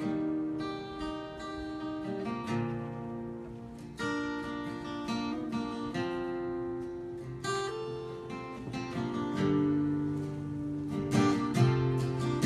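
Acoustic guitar being strummed and picked, chords left to ring and changing every few seconds.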